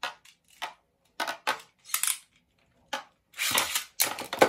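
Two Beyblade Burst spinning tops, Wonder Valtryek and Rock Devil, clashing in a plastic stadium: a series of sharp plastic clacks, with longer rattling scrapes about three and a half seconds in and the loudest hit near the end.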